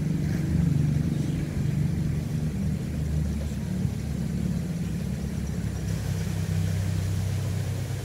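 Two-wheel hand tractor's engine running steadily as it plows a flooded rice paddy, a low, even drone with a slightly lower note coming in over the last couple of seconds.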